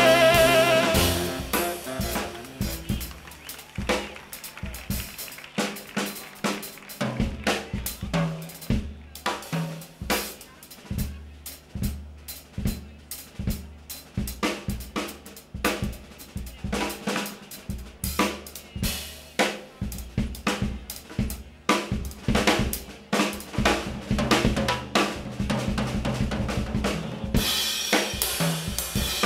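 Jazz drum kit solo played with sticks: snare, toms, bass drum and cymbals in busy, uneven patterns, right after a held horn chord dies away in the first second. Near the end, steady cymbal playing joins in.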